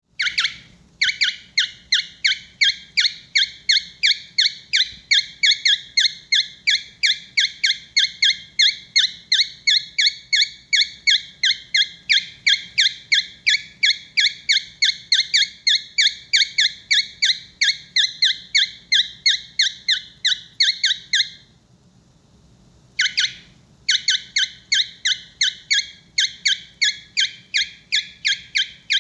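A pet bird giving short, high beeping calls over and over, about three a second, breaking off once for a second or two about three-quarters of the way through. This beeping is his usual warm-up before he starts singing.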